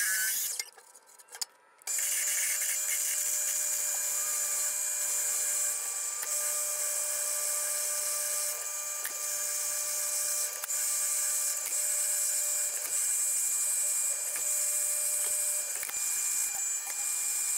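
Grizzly G0602 metal lathe running while a drill bit in the tailstock chuck cuts into the spinning steel workpiece: a steady whine with a hiss of cutting, dipping briefly every few seconds. It starts about two seconds in, after a near-silent moment with a few clicks.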